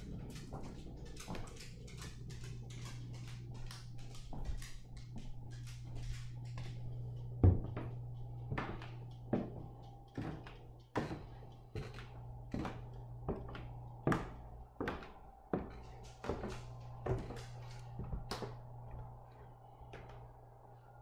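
Footsteps on wooden stairs: evenly paced knocks about one every 0.8 seconds as someone climbs, after a louder thump about halfway through, over a steady low hum.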